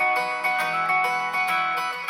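A Xiaomi 12 Pro ringtone playing: a melody of plucked, guitar-like notes in quick succession, each ringing and fading.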